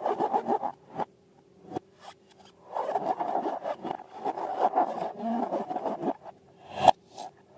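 Hands working balloons and slime: a quick run of short rubbing strokes, then a few seconds of continuous rubbing and scraping, with a single sharp snap near the end.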